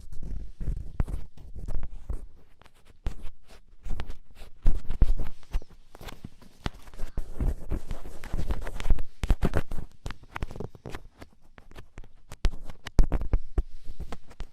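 Ear pick scraping firmly against a close microphone for ear-cleaning ASMR: irregular crackling scrapes and clicks over a deep rumble.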